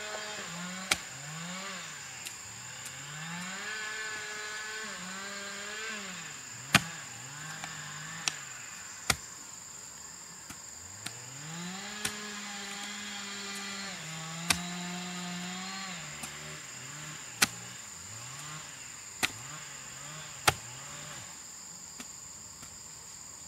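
Small motor revving up and down over and over, with a sharp knock every few seconds.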